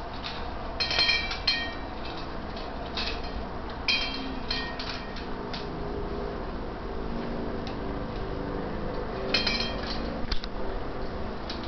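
A dog eating from a food bowl: the bowl clinks and rings in short clusters of knocks as the dog's muzzle pushes against it. There are bursts of clinks about a second in, again from about three to five seconds, and near the end.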